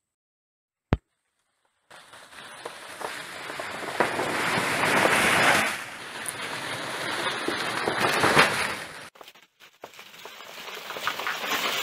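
A single sharp click about a second in, then a loud crackling rustle that starts suddenly and swells and fades in three waves.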